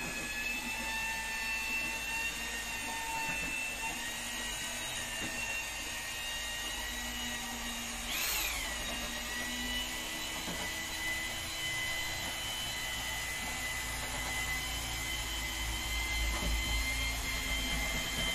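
A motor running steadily with a high whine made of several tones, its pitch briefly rising and falling back about eight seconds in.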